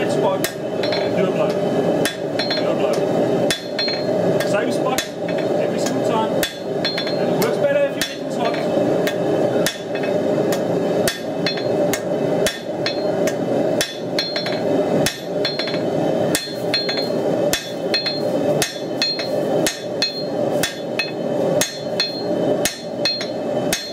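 Hand hammer striking hot steel on an anvil, forging a knife blade: a steady run of blows, about two a second, each with a short metallic ring, over a steady background hum.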